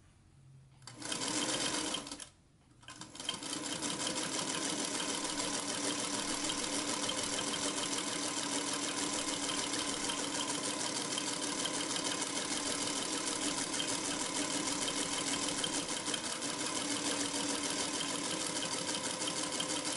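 1951 Singer Featherweight 221 sewing machine stitching fabric: it starts about a second in, stops briefly, then runs at a steady, fast, even stitching rhythm.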